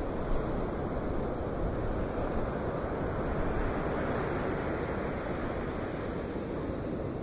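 Storm surf and hurricane wind: a steady rushing noise, with wind buffeting the microphone.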